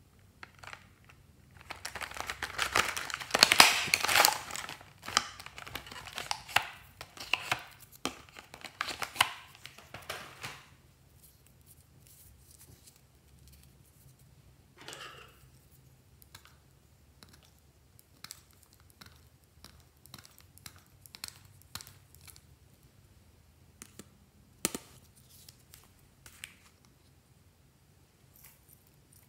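Hands handling plastic packaging and cosmetic cases: a stretch of dense crinkling and crackling for the first ten seconds or so, loudest a few seconds in, then scattered light plastic clicks and taps.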